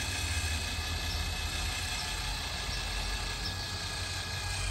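Electric linear actuator running, a steady motor hum with a faint high whine, as it folds a welded steel TV mount arm and plate up.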